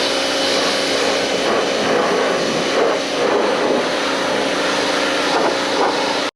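Cat 1800 PSI electric pressure washer running: a steady motor and pump hum under the hiss of the water jet spraying. It cuts off suddenly near the end.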